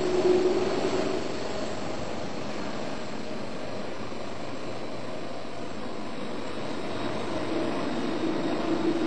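Jet airliner engines running at low power as the aircraft taxis: a steady rush with a low whine, slightly louder in the first second.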